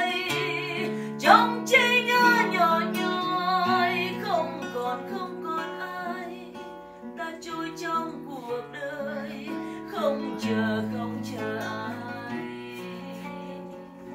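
Acoustic guitar playing an instrumental passage between sung verses, with picked notes and strummed chords, growing somewhat quieter toward the end.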